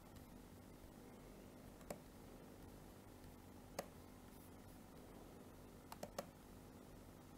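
Near silence with a faint steady hum, broken by sharp computer mouse clicks: one about two seconds in, another near the middle, and a quick run of three near the end.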